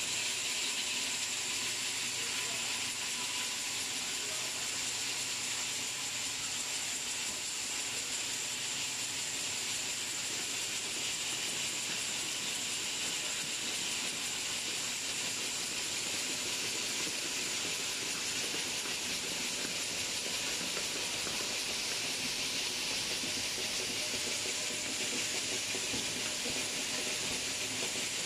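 Automatic bottle-cap assembly machinery running: a steady, even hiss with a thin high whine held throughout.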